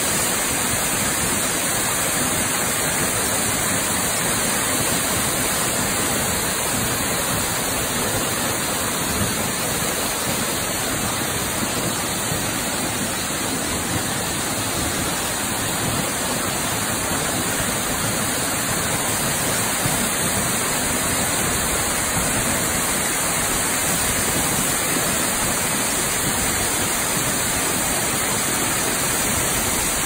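Waterfall pouring down a rock face: a steady, unbroken rush of falling water splashing onto the rocks below.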